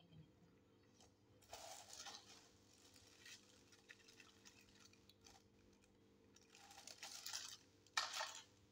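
Clear plastic packaging round a microphone pop filter crinkling and rustling as it is handled, in a few bursts, the sharpest near the end.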